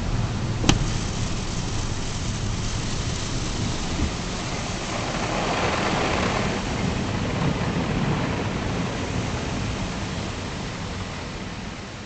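Water jets of an automatic truck wash spraying over the truck, heard from inside the cab as a steady rushing hiss over a low rumble. A sharp click sounds just under a second in, and the hiss swells for a couple of seconds around the middle.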